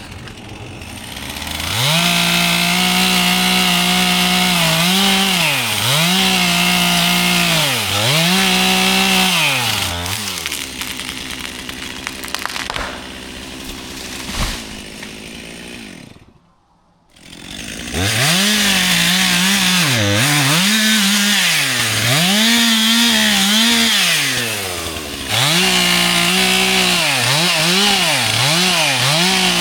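Chainsaw running at high speed while cutting wood, its pitch sagging and recovering about every two seconds. There is a brief break about two-thirds of the way through, then the saw runs on.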